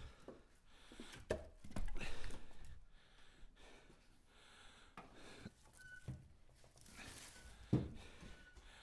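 Split ash firewood being handled and stacked: scattered wooden knocks and clatter as pieces are picked up from a truck bed and set on the pile, the louder ones about a second in, around two seconds in and near the end.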